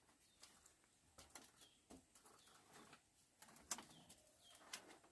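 Near silence: faint scattered clicks and a few faint, short high chirps from a bird.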